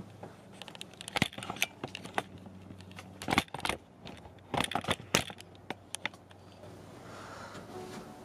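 Close-up handling noise of a camera being gripped and repositioned: a run of sharp clicks, knocks and scrapes over a low steady hum, dying away after about six seconds.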